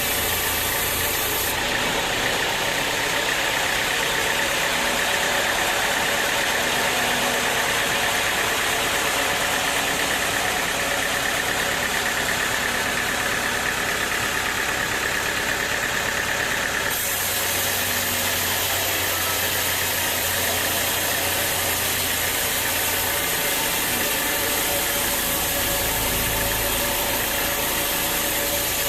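Sawmill machinery running steadily, with loud continuous mechanical noise. Its sound changes abruptly about a second and a half in and again a little past halfway.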